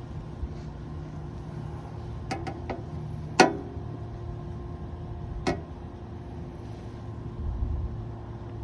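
A few sharp clicks and knocks from hand work on parts of a portable generator: a quick cluster about two and a half seconds in, the loudest knock with a brief ring about three and a half seconds in, and another about five and a half seconds in, over a steady low hum.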